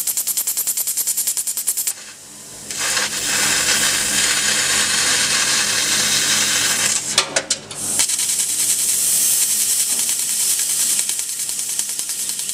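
Fiber laser cutter cutting 12 mm carbon steel plate: a steady hissing crackle of the cut, rapidly pulsing at first. It dips about two seconds in and breaks off briefly with a few clicks a little past seven seconds before the hiss resumes.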